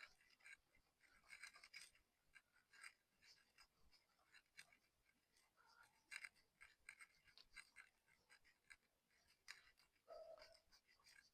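Very faint scratching and small clicks of a cloth rubbing degreaser off a motorcycle drive chain, in short irregular strokes.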